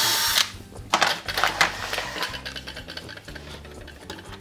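Makita cordless drill boring a shallow 5 mm hole into a cabinet side panel, stopping about half a second in. It is followed by light clicks and knocks as the drill bit is shifted to the next hole.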